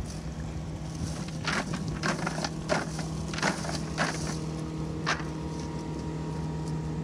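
A monofilament cast net being gathered and loaded for a throw: a run of short, crinkling rustles from the mesh and lead line, about seven in a few seconds, over the steady low hum of the boat's idling motor.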